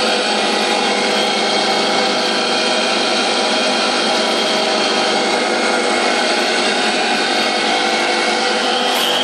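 Homemade wood chipper driven by the electric motor of a water pump, running steadily at full speed with a constant whine and hiss. There is one sharp click near the end.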